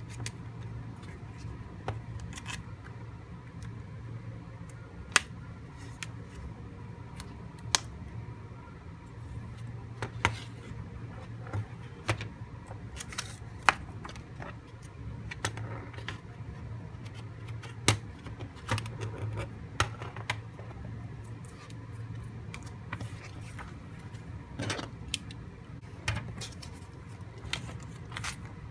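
Close-up handling of a picture frame and card: irregular sharp clicks and taps as the frame's metal turn clips, hardboard backing and frame are moved and set down on a desk, with light rustling of paper and card. A low steady hum runs underneath.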